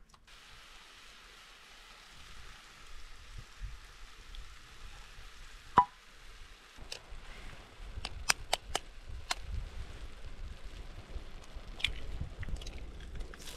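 Cooking over an open fire: a faint steady hiss, a single ringing metal clink about six seconds in, then a run of sharp clicks and light knocks in the second half.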